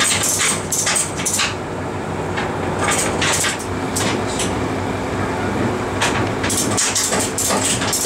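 McLaren P1's 3.8-litre twin-turbo V8 idling with a steady low note while the car creeps slowly up the ramp into a transporter trailer. Frequent sharp metallic clicks and clanks sound over it, in clusters.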